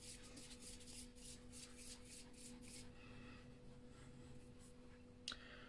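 Faint rhythmic rubbing of palms rolling a lump of self-hardening modelling paste into a ball, several quick strokes a second, fading out about three seconds in. A single small click near the end.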